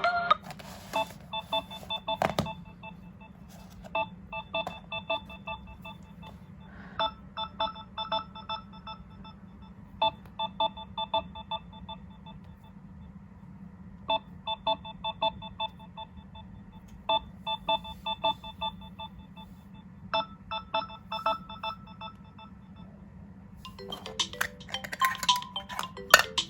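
Mobile phone alarm beeping: bursts of quick electronic beeps, each about a second and a half long, repeating about every three seconds over a low steady hum. Near the end a louder, melodic ringtone-style alarm starts.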